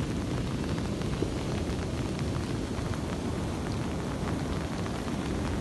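Steady rain falling, a constant rushing hiss with fine pattering drops through it, over a low rumble of wind and surf.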